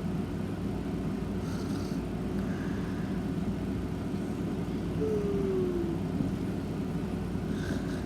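A sleeping pet snoring, a steady low rumble of breathing with a short falling whistle-like note about five seconds in.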